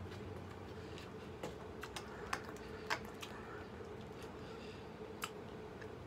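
A metal spoon clicking lightly against a ceramic bowl of sticky natto and mekabu as it is stirred and scooped: about seven scattered clicks over a faint steady hum.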